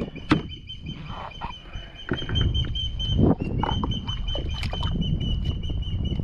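Wind buffeting the microphone in a low rumble, with a thin steady high whine and a few sharp clicks and knocks from handling pliers and the fish at the kayak's side.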